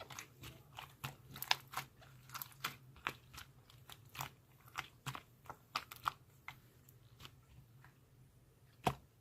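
Slime being squeezed and poked by hand, making irregular sharp clicks and crackly pops, dense for about six seconds and then sparser, with one louder pop near the end.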